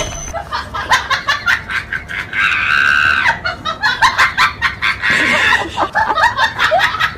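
Rapid high-pitched squeals and laughter-like bursts, with one longer held squeal about two and a half seconds in.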